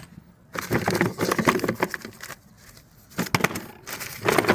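Loose metal tools and fixings clinking and rattling as they are handled and rummaged through in a tool box: a long rattle starting about half a second in, then two shorter bursts near the end.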